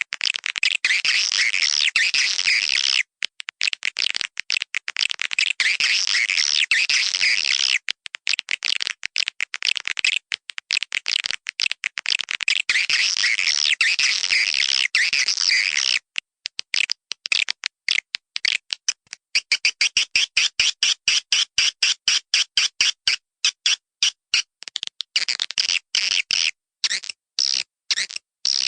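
Swiftlets twittering: dense high chirping calls with a few short breaks, changing after about 16 seconds into quick trains of short clicks and chirps.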